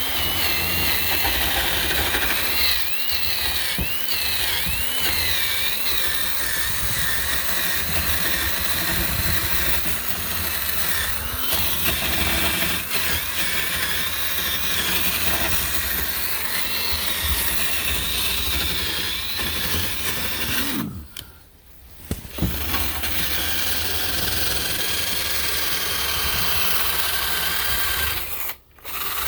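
Cordless power tool, most like a drill, running steadily against wood as old dark finish is cleaned off a redwood screen door. It stops for about a second and a half around 21 seconds in, and briefly again near the end.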